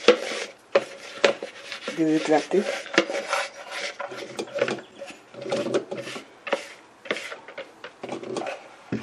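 A spoon scraping and tapping a plastic bowl as dry ground turmeric is emptied through a plastic funnel into a glass jar: a run of irregular scrapes and taps.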